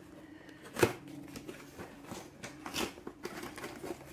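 Hands handling a cardboard kit box: one sharp knock about a second in, then light rustling and tapping of cardboard against paper.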